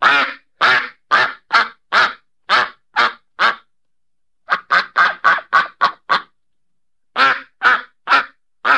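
Duck quacking: a run of about eight loud quacks, a quicker burst of about seven near the middle, then another run near the end, with complete silence between the runs.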